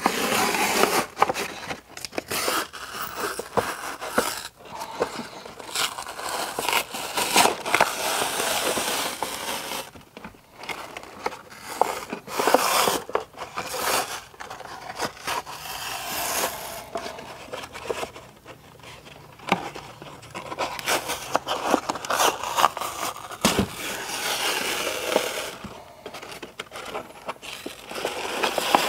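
Polyethylene-and-fleece sheet waterproofing membrane being peeled off set thinset mortar and crumpled: irregular crinkling, tearing and scraping, with short pauses between pulls.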